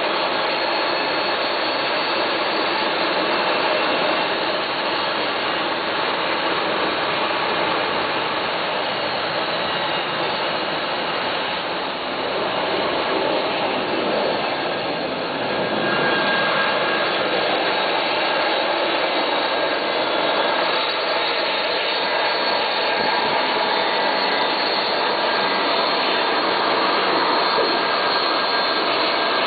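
Boeing 737-200's Pratt & Whitney JT8D turbofan engines running at taxi power as the jet turns on the apron: a steady, very loud jet noise with a whine on top. The noise dips briefly near the middle and then grows again as the engines' exhaust swings toward the listener.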